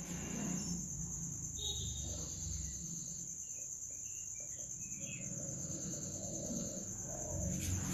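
Marker tip squeaking faintly on a whiteboard in short strokes as words are written, over a steady high-pitched chirring and a low room rumble.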